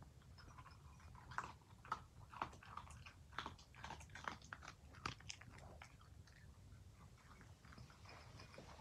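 Australian shepherd crunching dry kibble from a bowl: faint, irregular crunches about twice a second, thinning out near the end.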